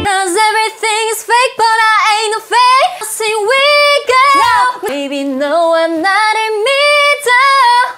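A young woman singing solo and unaccompanied, holding notes with vibrato and stepping between pitches.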